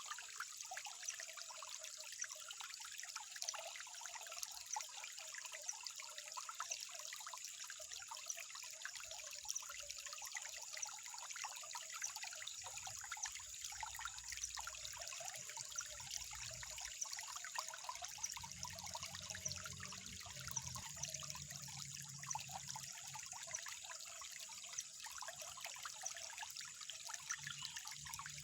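Water trickling steadily, a continuous fine patter of small splashes.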